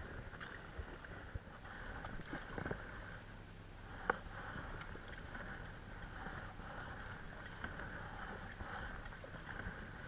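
Faint water swishing of a canoe being paddled across calm water, with a few light knocks and one sharper click about four seconds in.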